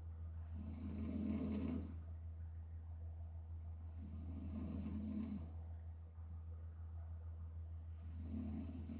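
A sleeping woman snoring through an open mouth: three snores about four seconds apart, each lasting a second or so. A steady low hum runs underneath.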